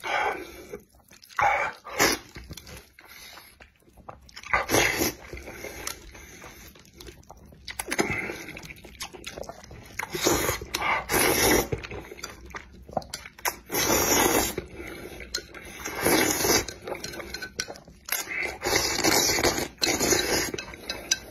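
Wet, loud slurping of sauce-coated spicy turkey (fire chicken) instant noodles mixed with zhajiang noodles, in repeated pulls a second or two long, with chewing and mouth noises in the quieter gaps between.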